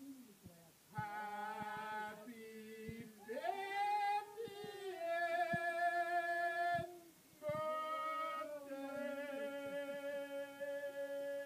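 A small group of men and women singing together without accompaniment in long held notes, stepping from one pitch to the next, with a brief pause about seven seconds in.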